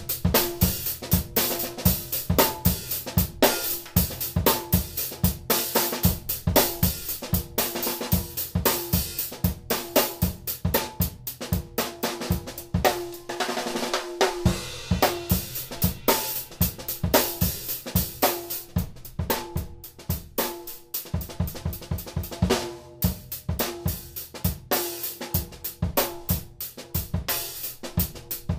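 A drum kit played in a steady groove, featuring a PDP 6x10 popcorn snare, with bass drum, hi-hat and cymbals. A ringing drum note sounds under the hits throughout. About halfway through a cymbal wash takes over for a moment as the low drum hits thin out.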